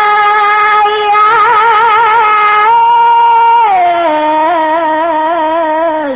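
Khmer smot chanting: a single unaccompanied voice holding long drawn-out notes with a wavering vibrato. It steps up in pitch a little under three seconds in, comes back down about a second later, and falls away at the end.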